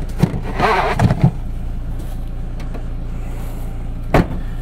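Audi A4's 1.6-litre petrol engine idling with a steady low hum. Over it come a few handling clicks, a short rustle about a second in, and one sharp click near the end.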